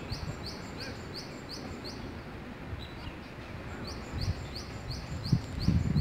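A bird calling a run of short, high, falling notes, about three a second; the run stops about two seconds in and starts again about four seconds in. A few low thumps come near the end.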